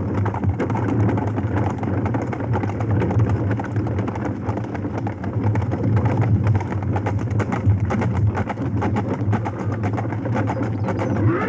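Light horse-drawn cart driven downhill at a gallop: pounding hooves and the rattle of the wheels and cart make a dense, unbroken clatter over a steady low rumble.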